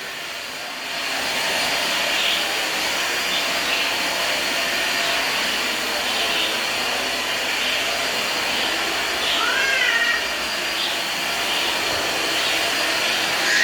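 Household vacuum cleaner running steadily, coming up to full speed about a second in. Near the end comes a brief wavering high-pitched call.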